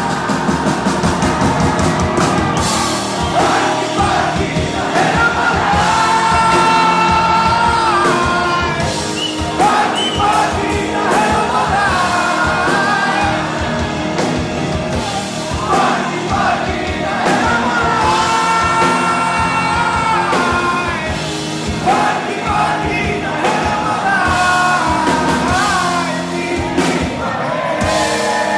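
Live Nepali rock band playing, with electric guitars, drums and a sung melody carried over the band.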